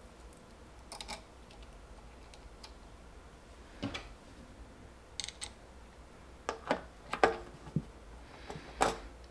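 Small metallic clicks and taps of a battery cable's ring terminal being fitted onto a terminal post and screwed down with a screwdriver, a few scattered clicks with a closer cluster in the second half.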